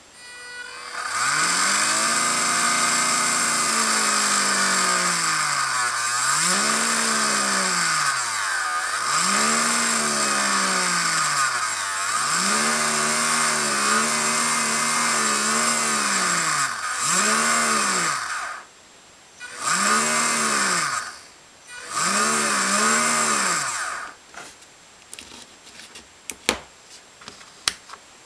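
Small brushed DC motors driven by PWM through an SN754410 H-bridge, their whir rising and falling in pitch again and again as a potentiometer speeds them up and slows them down, over a steady high-pitched tone. The motors stop and restart twice, then cut out, leaving a few sharp clicks.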